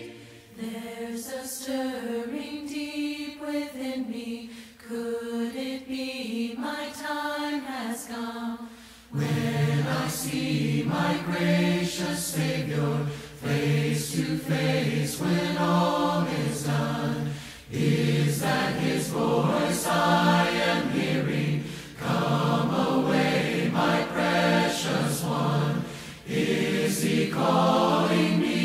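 A group of voices singing a slow hymn a cappella, in held notes. About nine seconds in, lower voices join and the singing grows fuller and louder.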